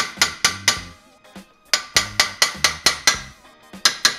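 Hammer blows on a Volvo rear brake disc in quick runs of about five a second, the disc ringing after each hit, to knock a stuck disc off the hub. A pause about a second in, then a second run, and a few more blows near the end.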